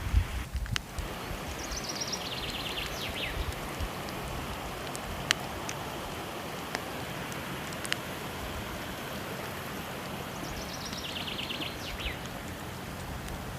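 Steady rushing of falling water layered with a wood fire crackling, with a few sharp pops. A short, high, descending trill sounds twice.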